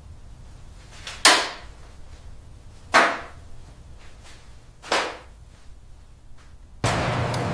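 Three sharp strikes about two seconds apart, each with a short tail that falls away quickly. Near the end a steady hiss with a low hum sets in.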